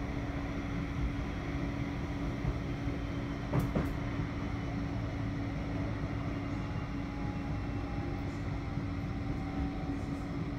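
Cabin noise of a Bombardier Flexity 2 tram under way: a steady low rumble from the running gear with a steady hum over it. A pair of sharp knocks comes about three and a half seconds in, and a faint tone slides slightly lower toward the end.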